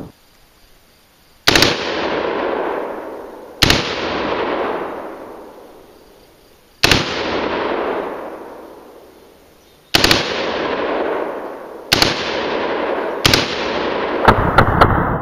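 Gunshots from an M4-style carbine: six single shots spaced one to three seconds apart, each followed by a long echo that dies away. Near the end comes a quick string of about four shots.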